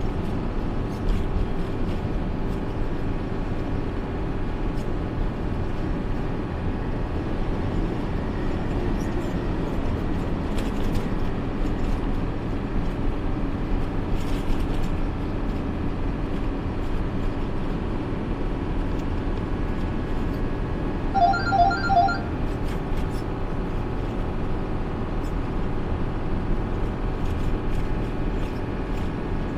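Steady drone of a truck's engine and tyres at highway cruising speed, heard from inside the cab. About two-thirds of the way in, a short run of three quick electronic beeps sounds over it.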